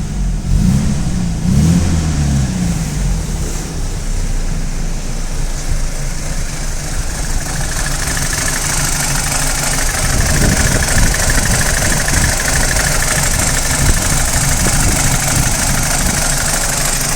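BMW E90 320i N46 four-cylinder petrol engine, blipped up and down over the first few seconds, then idling roughly with a rattle. It is the warm-engine rattle and misfire that persists after a new timing chain, guides and tensioner, which the owner suspects comes from the VANOS unit or its solenoid.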